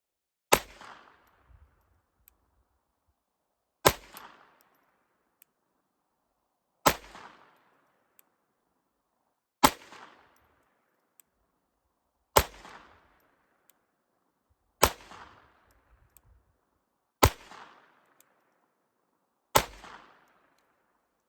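Ruger LCP II .22 LR pocket pistol firing 40 grain solids: eight single shots at a slow, even pace, each with a short echo fading after it. The pistol is being fired with a deliberately limp wrist, to test whether it still cycles reliably.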